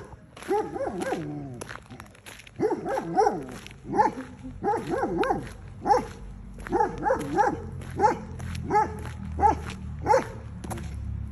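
A dog barking over and over, short barks at about one and a half a second. A low rumble builds beneath it in the second half.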